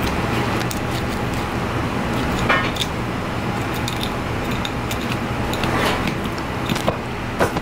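Knife blade scraping and clicking along a fish's backbone as the fillet is cut away, a few short scrapes spaced out over a steady background rumble.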